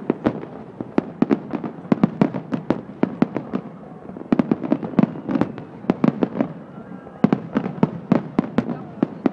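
Aerial fireworks shells bursting in rapid salvos: many sharp bangs a second, with short lulls about four and seven seconds in.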